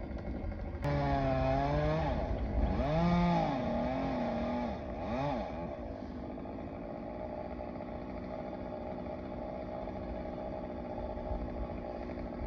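Chainsaw engine revved in several rising-and-falling surges from about a second in until about six seconds, then running on steadily and more quietly.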